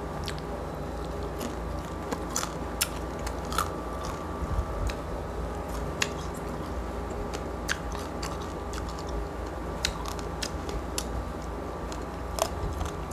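Close-miked chewing of crispy roast pork skin from a lechon pig's head, with scattered sharp crackling crunches about once a second over a steady low hum.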